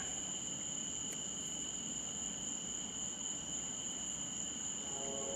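Night insect chorus: a steady high-pitched chirring at two pitches, over a faint low rumble.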